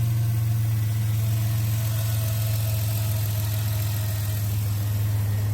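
Chrysler Town and Country minivan engine idling steadily with an even, low hum.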